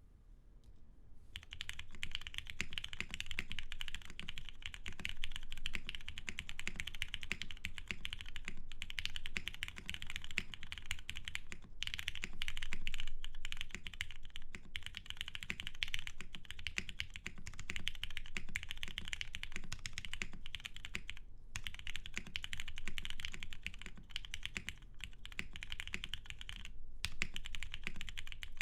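Fast, continuous typing on a Geonworks F1-8X mechanical keyboard with lubed Cherry Hyperglide MX Black linear switches, an aluminium leaf-spring plate and PBT keycaps: a dense stream of key clacks starting about a second in, broken by a few brief pauses.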